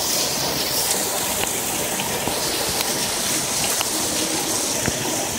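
Steady rushing hiss of a steam leak filling the room, with scattered faint ticks.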